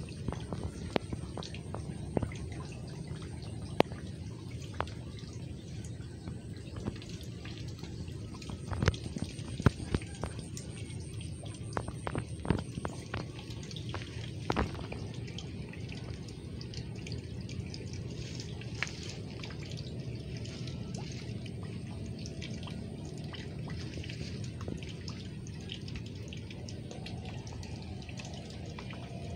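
Water dripping and lightly splashing, with scattered short clicks and knocks over a steady low rumble; the clicks are densest in the middle stretch.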